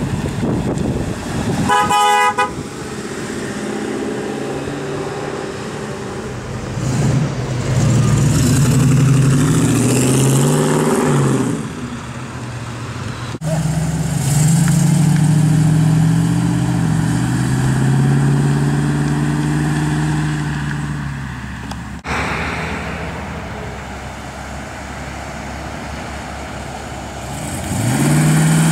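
Jensen classic cars, Interceptors among them, driving past one after another, their V8 engines rising and falling in pitch as each goes by. A short car horn toot sounds about two seconds in.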